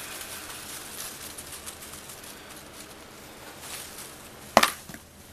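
Scratching and rustling of a cat wrestling and kicking at a fabric toy on carpet, with many small scrapes and clicks, then one sharp knock near the end.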